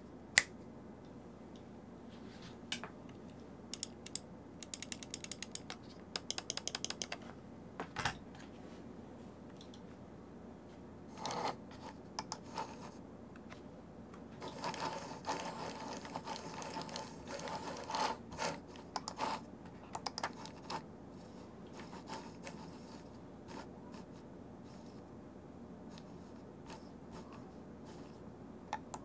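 Sound test of a 3D-printed Ploopy Classic trackball. Its scroll wheel ratchets in fast runs of clicks and its mouse buttons click singly. In the middle there is a stretch of typing on a split mechanical keyboard.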